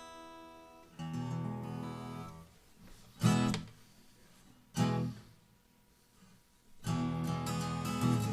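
Acoustic guitar being strummed. A chord rings out and fades, then come a short strum and two single loud strums that each ring out. After a brief quiet gap, steady strumming starts near the end.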